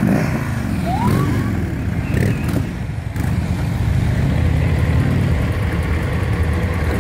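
Police touring motorcycles riding slowly past at close range, their engines rumbling steadily at low speed.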